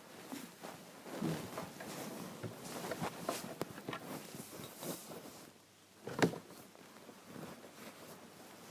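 Scattered rustling, clicks and small knocks of handling in a small room, with one louder knock about six seconds in.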